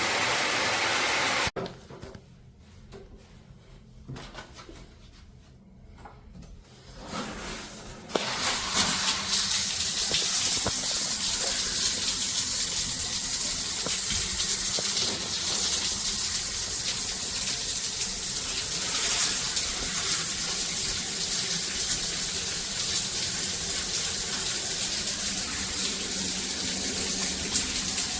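Shower head spraying water with a steady rushing hiss; the spray cuts off abruptly about a second and a half in, leaving much quieter sounds, then comes back on strong about eight seconds in and runs steadily.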